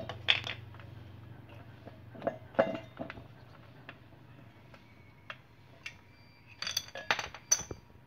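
Metal parts inside an opened refrigerator compressor clinking and tapping as they are handled and the steel discharge tube is lifted out: scattered clinks, then a quick run of sharper clinks near the end.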